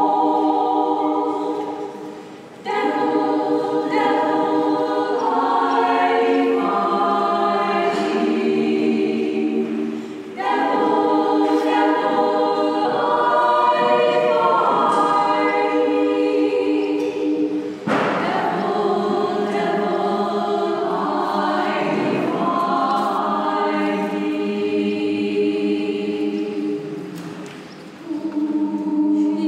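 Women's a cappella choir singing in close harmony, long sustained chords in phrases broken by brief pauses about two and a half, ten, eighteen and twenty-eight seconds in.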